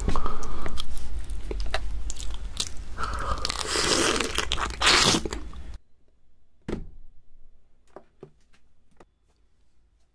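Close-miked eating sounds: loud, rapid biting, crunching and chewing for about the first six seconds. Then it cuts to quiet, with a single sharp knock about a second later and a few faint ticks.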